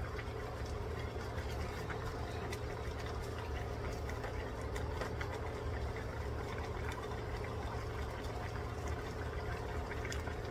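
A pot of chicken adobo simmering in its broth, with faint scattered pops over a steady low hum.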